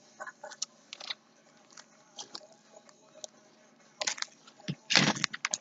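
Hands squeezing and folding a big lump of mixed slime: irregular wet clicks, squelches and small pops, with a louder burst of squishing about four and five seconds in.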